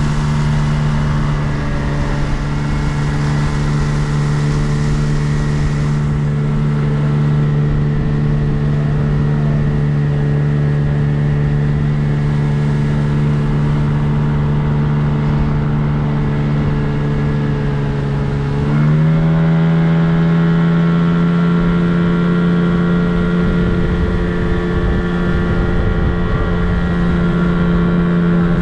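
Hidea 9.9 outboard motor running steadily under way during its running-in, its speed stepping up slightly about two-thirds of the way through.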